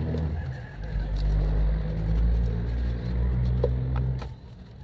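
A motor running with a low, steady hum that cuts off suddenly about four seconds in, with a few light clicks over it.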